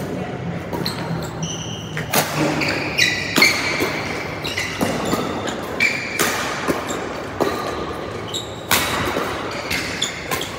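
Badminton rally: rackets striking the shuttlecock with sharp hits roughly every second and a half, among short squeaks of court shoes on the floor mat.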